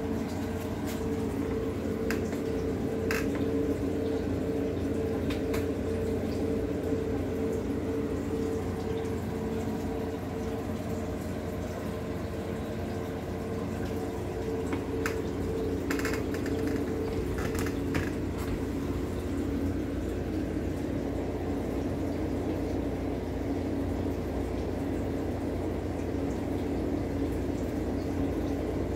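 Aquarium water bubbling from a rising stream of air bubbles, over a steady hum from the tank's equipment, with a few faint ticks.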